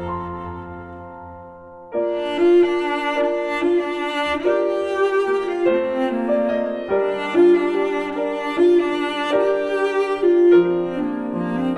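Instrumental background music of sustained bowed strings, violin and cello, with piano. A held note fades over the first two seconds, then a new phrase comes in.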